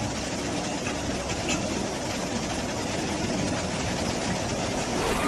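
Steady rushing noise of a fast-flowing, swollen flood river in heavy rain.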